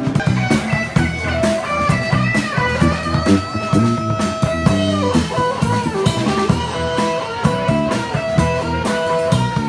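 Background music: a bluesy track with guitar and a steady drum-kit beat.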